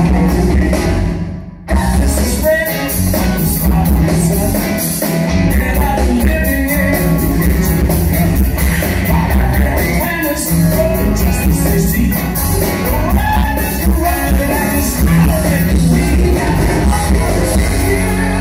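Live rock band playing with a lead vocal. There is a brief break about a second and a half in, then the band comes back in.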